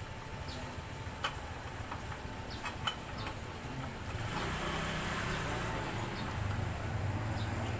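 A few faint small clicks of wire handling, then from about four seconds in a low, steady vehicle engine rumble comes in and holds.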